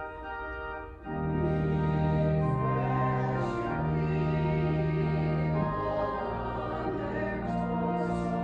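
Church organ playing a hymn in sustained chords; after a short break about a second in it comes back louder, the chords changing every second or so.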